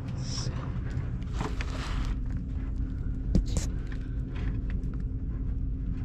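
Fish tape being pushed up inside a wall cavity: faint scraping and rustling handling noises over a steady low rumble, with one sharp click a little over three seconds in.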